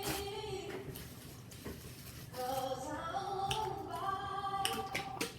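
A woman singing long held notes that slide gently in pitch, with a few sharp clicks near the end.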